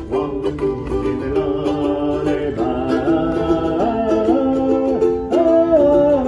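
Music on a plucked string instrument such as a ukulele, the melody holding notes and sliding between them.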